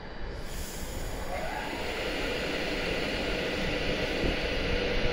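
11-coach Class 390 Pendolino electric train pulling out of the platform, a steady rumble and hiss slowly building as it gathers speed, with a faint whine that rises about a second in and then holds.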